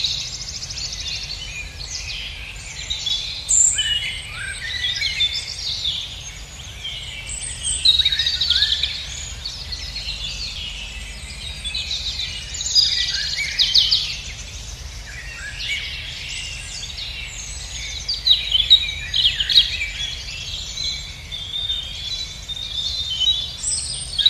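Several songbirds singing and calling at once: a dense chorus of overlapping chirps and trills, with a low steady rumble underneath.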